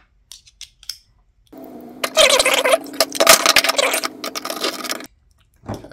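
Hard 3D-printed plastic parts being handled and fitted together: a few light clicks, then about three and a half seconds of loud scraping and clattering, with a low rasping drone under it.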